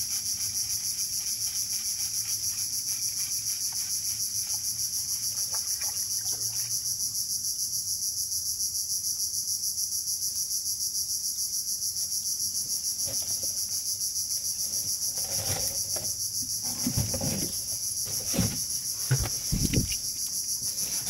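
Dense insect chorus: a steady, rapidly pulsing high-pitched buzz. In the last few seconds there are several dull knocks and thumps.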